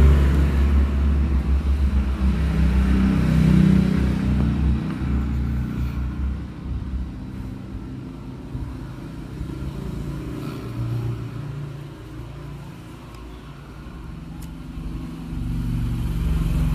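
A motor vehicle's engine running, with a low rumble that is loudest at first, fades through the middle and builds again near the end.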